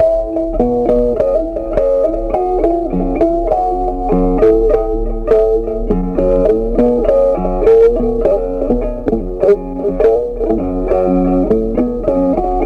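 Background music: a plucked guitar melody, its notes changing several times a second.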